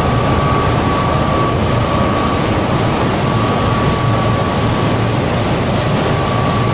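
Steady machinery noise, with a constant high whine and a low hum under it, typical of a running boiler plant's fans and motors.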